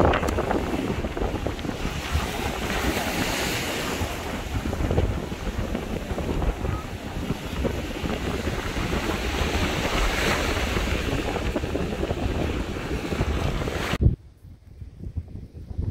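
Surf breaking on a sandy beach with wind buffeting the microphone, a steady rushing noise that cuts off abruptly near the end.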